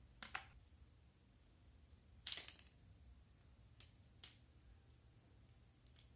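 A quiet room with a few sharp clicks of small hard pieces: a quick double click near the start, a louder clack about two seconds in, and two faint ticks later.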